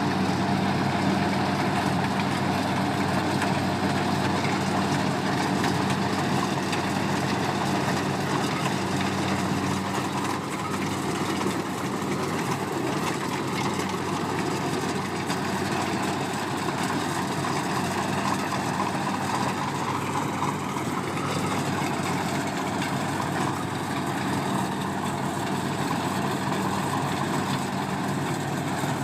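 Engine of a farm machine, such as a tractor or combine harvester, running steadily at an even, unchanging speed.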